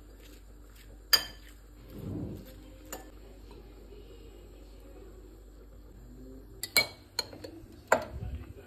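Dishes and cutlery clinking: one sharp clink about a second in, a soft knock around two seconds, then a quick cluster of three clinks near the end.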